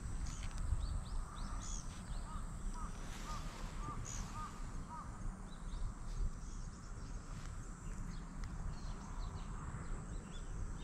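Outdoor ambience: a bird calls a quick run of about six short, hooked notes a couple of seconds in, with fainter high chirps from other birds scattered throughout. A low rumble sits under it all on the microphone.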